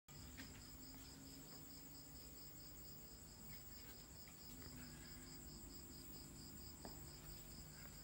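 Faint, steady trilling of crickets, heard as two high, rapidly pulsing tones, over a low steady hum.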